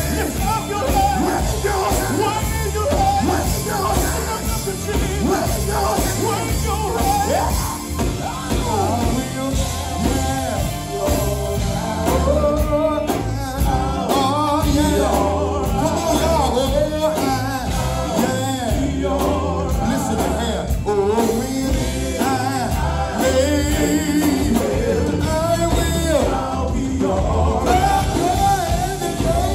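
Male gospel vocal group singing live into microphones, backed by electric bass and band, amplified through the church's loudspeakers.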